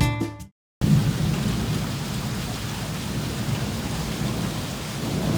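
Background music fades out at the start and cuts to a moment of silence. Then heavy rain pours steadily, with a low rumble underneath.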